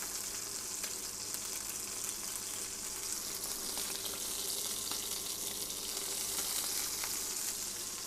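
Partridge breasts searing skin-side down in hot oil in a frying pan: a steady sizzle with faint crackles.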